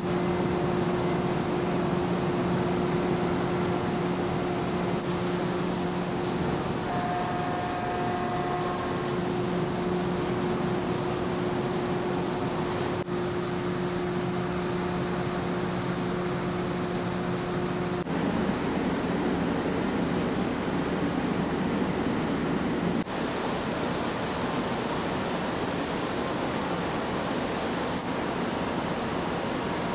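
Open-deck ambience on a large car ferry: a steady rushing of wind and sea with a low, steady machinery drone. The drone stops about eighteen seconds in, leaving a rougher rushing noise.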